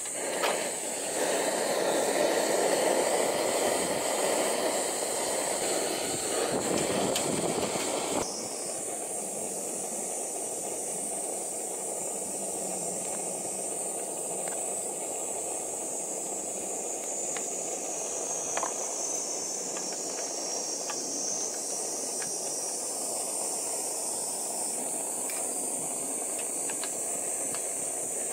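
Gas canister stove burner running at full flame with a loud steady rushing hiss, turned down abruptly about eight seconds in to a quieter steady hiss. Bacon is laid into hot oil in an aluminium mess tin on the burner, with a few light clicks of tongs on metal. A steady high-pitched insect drone runs underneath.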